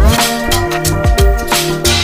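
Background music with a drum beat and held notes.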